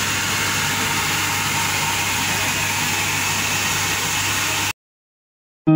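Steady hiss with a constant low hum from a steam locomotive standing at the platform, letting off steam; it cuts off suddenly about a second before the end.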